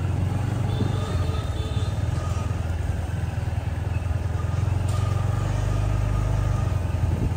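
Steady low hum of a motor vehicle's engine running, with a sharp click about five seconds in.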